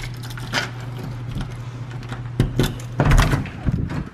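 Keys in a front-door deadbolt: metallic clicks of the key and lock, then louder clunks as the door is unlatched and pushed open, over a steady low hum.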